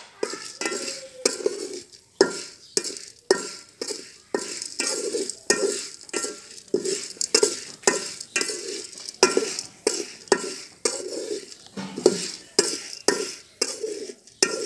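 Metal spoon scraping and clinking against an aluminium pot while stirring dry maize kernels in hot salt to pop them, with a rustle of kernels; about two strokes a second, with a faint metallic ring.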